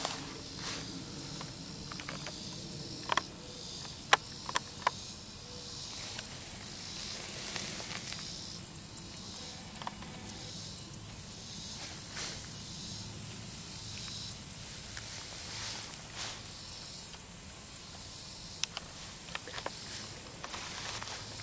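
Steady high-pitched outdoor hiss, of the kind insects or wind make, with a few sharp clicks about three to five seconds in.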